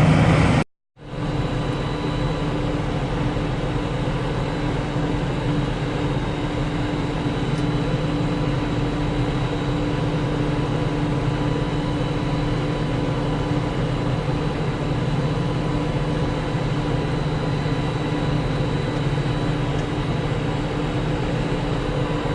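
Steady, unchanging drone of heavy farm machinery working in the wheat harvest, with a constant engine hum. It starts abruptly just under a second in, after a short silent gap.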